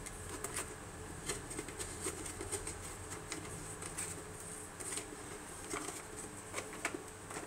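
Faint scattered clicks and rustles of a plastic antenna booster box and its cable connector being handled, over a faint steady high whine.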